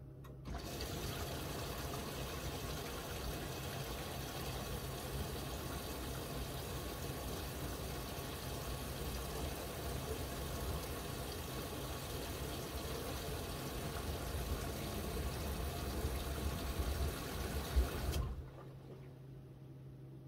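Miele W1 washing machine taking in water: a steady rush of water that starts about half a second in and cuts off suddenly about 18 seconds in, with a low rumble building near the end.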